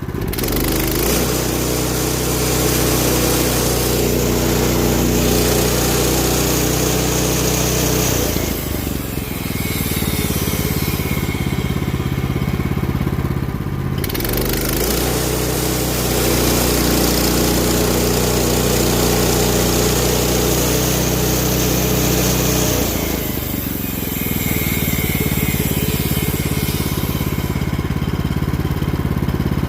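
Gas chainsaw cutting cookies off a walnut branch, running at full throttle through the wood. It drops back to idle for several seconds about a third of the way in, and briefly again about three-quarters through.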